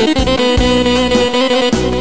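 Sampled saxophone voice from a Juzisound sample set, played on a Korg keyboard. It holds one long note from just after the start until near the end, over a bass-and-drum backing.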